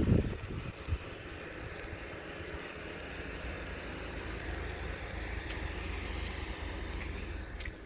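Wind rumbling on a phone's microphone over steady outdoor background noise, with strong gusts at the start, one knock about a second in, and a few faint clicks near the end.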